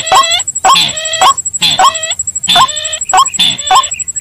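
Bird-lure recording of white-breasted waterhen (ruak-ruak) and sintar ladang rail calls: loud calls with stacked tones and a short upward hook, repeated about twice a second, over a thin steady high tone.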